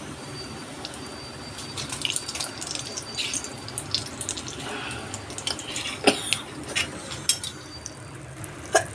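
Water running, with scattered clicks and knocks starting about two seconds in.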